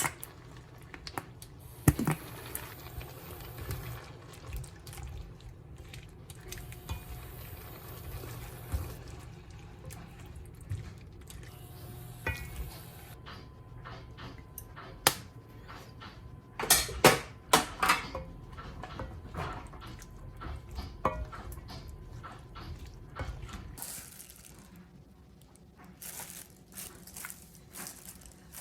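Water running from a kitchen tap into the sink for the first dozen seconds or so, then dishes and utensils clicking and knocking, with a short run of water again near the end.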